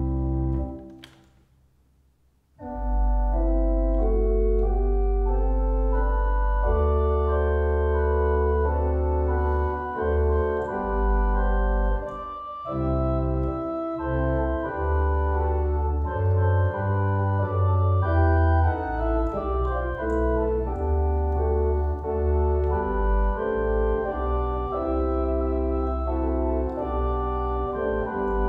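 Wyvern digital church organ playing sustained chords over a deep pedal bass. About a second in a chord is released and rings away in the church's echo, and the playing starts again at about two and a half seconds and carries on as a slow chordal accompaniment.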